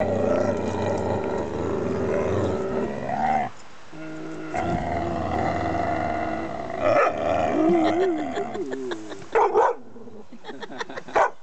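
Yellow Labrador growling steadily while tugging on a leash in play, with a short pause partway through. About nine seconds in it switches to a few short barks.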